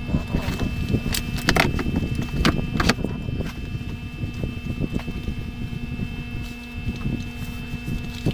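Nylon straps and plastic buckles of a chest-mount phone harness rustling and clicking as it is pulled on and adjusted, busiest in the first three seconds, over a steady low background hum.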